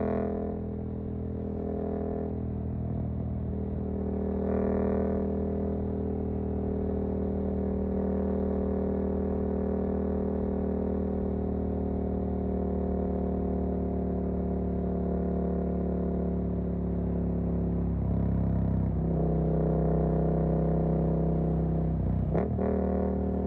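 Suzuki GSX-8S parallel-twin engine running under way through a Jeskap EVO aftermarket exhaust. The engine note holds mostly steady and breaks briefly twice near the end, the second time with a quick change in pitch.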